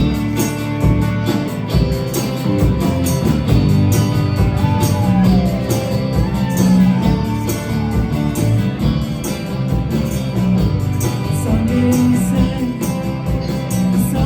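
Live indie pop band playing: strummed guitars over a steady drum beat, with singing in the middle.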